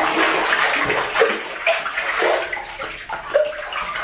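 Coca-Cola sloshing and splashing in a bathtub as a person ducks under it.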